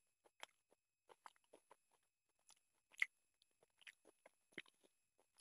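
Faint, scattered wet clicks and smacks of fingers mashing and mixing rice with chicken curry on a plate, mixed with chewing; one sharper click about three seconds in.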